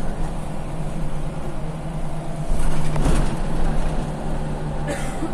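Scania CL94UB city bus engine and drivetrain heard from inside the passenger cabin: a steady low hum that grows louder about halfway through, with a short hiss near the end.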